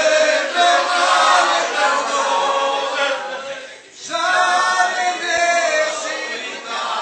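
A group of voices singing together unaccompanied, with a brief pause about halfway through before the singing resumes.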